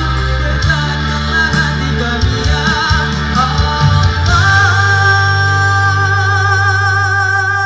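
A man singing live into a microphone over a loud band with keyboards and a heavy bass line. About four seconds in he holds one long high note with vibrato.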